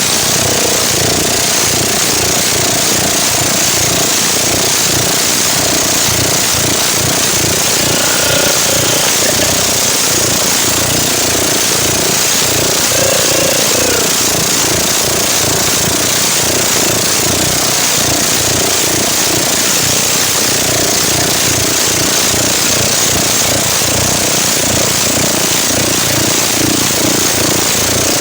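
Automatic scooter engine fitted with a racing CVT drive-face pulley, running hard and steadily with a rapid, rough pulsing that holds at an even level throughout.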